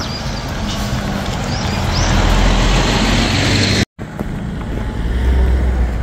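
A vehicle running, a steady rumble with broad travel noise that grows louder about two seconds in. The sound drops out for an instant about four seconds in, then the rumble goes on.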